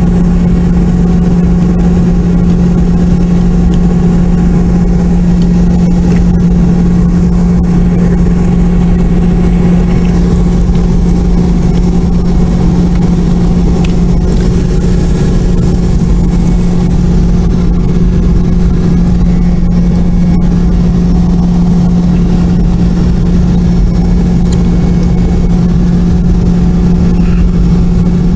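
Boeing 717's rear-mounted Rolls-Royce BR715 turbofan engines running at taxi power, heard inside the cabin: a loud, steady low drone with a thin high whine that steps up slightly about halfway through.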